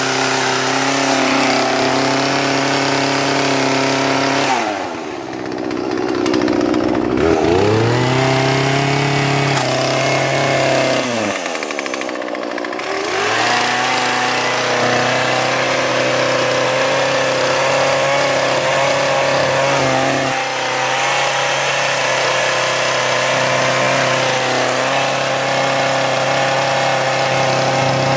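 Two-stroke gas chainsaw running steadily as it cuts into a pumpkin. The engine pitch drops sharply and climbs back up twice, about five seconds in and again about eleven seconds in.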